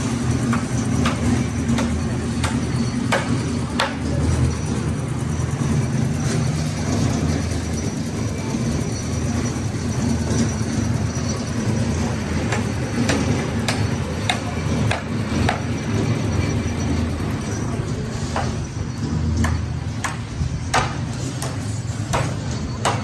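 Construction site noise: an engine drones steadily under many scattered sharp knocks and clanks, irregularly spaced and more frequent near the end.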